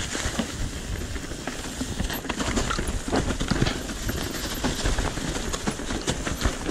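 Mountain bike descending a rocky singletrack covered in dry leaves: tyres rolling and crunching over leaves and stones, with a constant irregular clatter of knocks and rattles from the bike.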